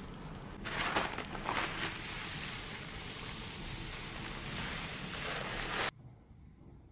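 Paper towel rustling and rubbing as foam is wiped off a fresh tattoo and the towel is pressed over it, with a few louder crinkles early on. It stops abruptly about six seconds in.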